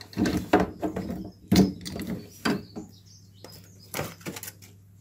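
A string of sharp clicks and knocks as the plastic parts of a Torbeck side-entry cistern filling valve are handled and its filter is pushed back in. The knocks are loudest about a second and a half in and grow sparser in the last two seconds.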